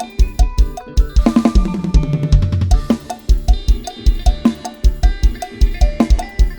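Lam sing instrumental music led by a drum kit: a fast, steady kick drum of about four beats a second with snare and cymbals. About a second in, a cymbal crash opens a drum fill that falls in pitch before the beat picks up again.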